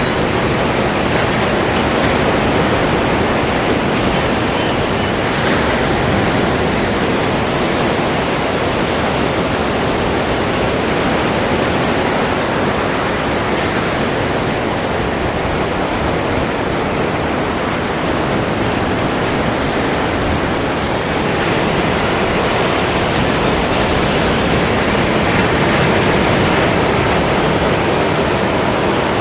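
Ocean surf: a steady rushing wash of waves with only gentle swells in level.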